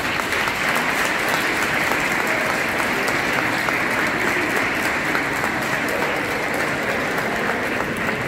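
Crowd applauding: many people clapping at once, steady throughout.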